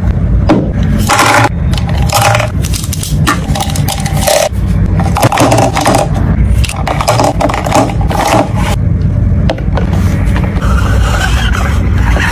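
Makeup brushes clattering and scraping against each other and a hard plastic brush holder as they are put in and the clear acrylic dome lid is handled: many irregular clicks and knocks over a steady low rumble.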